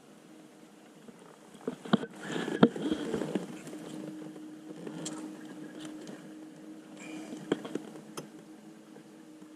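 A few sharp knocks and clicks, the loudest two about two seconds in, then a steady low hum from a small electric motor on a bass boat that runs from about three and a half seconds in.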